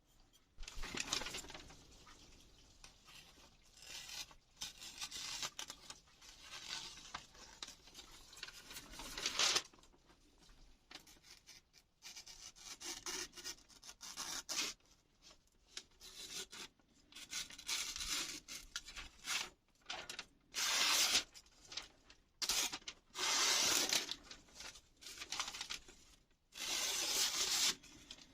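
A freshly sharpened Kai Shun chef's knife slicing through paper: a run of irregular hissing cuts, each about a second long, with short pauses between them.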